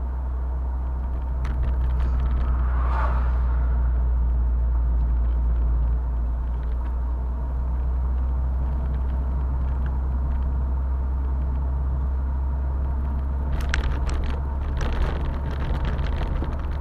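Convertible car driving, a steady low rumble of engine, tyres and wind, with a few short clicks near the end.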